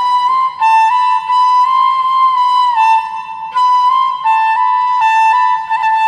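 Bamboo flute (bashi) playing a slow melody of long held notes joined by small slides, phrase breaks about half a second and three and a half seconds in, over a faint low accompaniment.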